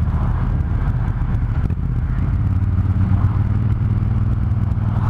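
Triumph Thunderbird Storm's big parallel-twin engine running steadily under way, its low note holding even, with road and wind rush around it.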